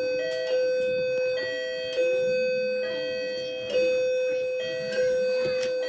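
Grandfather clock chiming: a run of struck, bell-like notes, roughly one to two a second, each ringing on under the next, with a higher note alternating over a held lower one.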